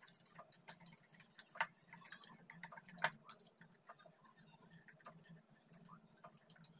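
Wire whisk stirring a thick yogurt-and-spice paste in a glass bowl: faint, irregular clicks and scrapes of metal on glass, with two louder clicks about one and a half and three seconds in.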